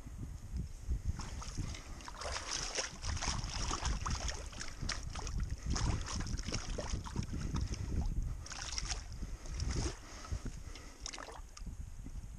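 Hands sloshing and splashing in shallow muddy water while bedding a body-grip trap, in irregular bursts, over a low rumble of wind on the microphone.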